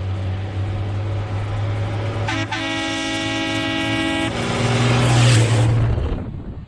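A dump truck's engine running as it drives up close, sounding its horn in a steady blast of about two seconds. The engine then grows louder as the truck reaches the camera, and the sound cuts off abruptly about six seconds in.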